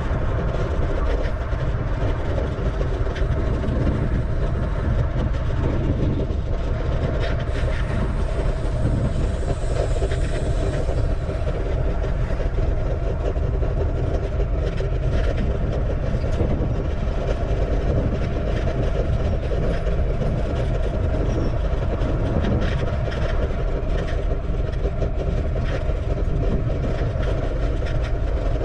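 Steady wind rushing over an action camera's microphone with road rumble from a bicycle riding at speed.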